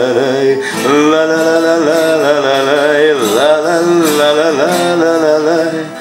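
A man singing long held, wavering notes with no clear words, accompanied by his own acoustic guitar.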